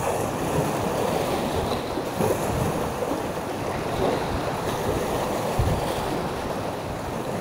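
Sea waves washing on the shore, with wind buffeting the microphone in low irregular thumps.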